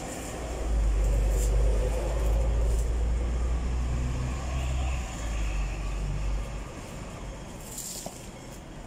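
Low rumble of road and tram traffic heard from the upper deck of a Hong Kong double-decker tram. It swells about a second in and fades out after six or seven seconds.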